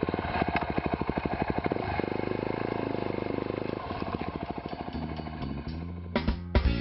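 Off-road motorcycle engine running at low revs, picking up speed about two seconds in and dropping back a couple of seconds later. Music with guitar comes in near the end.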